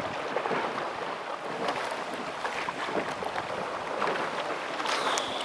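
Rowing boats on the water: oars splashing and pulling through the water under a steady wash of noise, with wind on the microphone.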